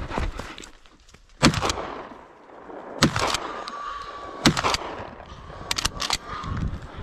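Shotgun fired three times, about a second and a half apart, each shot a sharp crack with a short echo.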